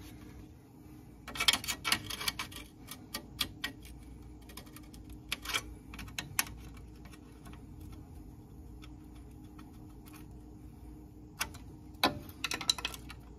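Scattered light clicks and taps of a hand tool and metal parts being handled at a truck's front steering knuckle and suspension, over a faint steady hum. The clicks come in a burst about a second and a half in, thin out through the middle, and return near the end.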